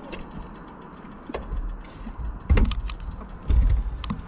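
Scattered clicks and a few short low thumps from someone handling a stalled Vento Rocketman 250 motorcycle that has run out of fuel; its engine is not running.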